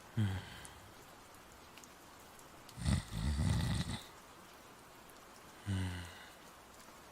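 A person snoring in slow breath cycles, voice-acted. There is a rough, low snore on the in-breath about three seconds in, and a short falling tone on the out-breath just after the start and again near the end.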